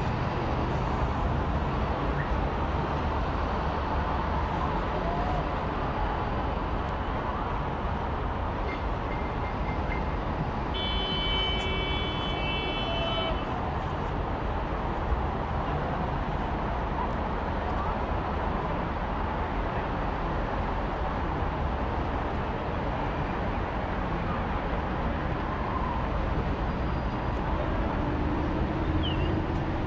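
Steady outdoor city hubbub, an even rumbling noise. A little over a third of the way in, a single high horn toot is held for about two seconds.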